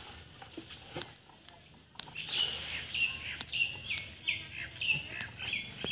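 A bird calling a quick run of short, falling chirps, about three a second, starting about two seconds in. A few faint knocks come through in the first part.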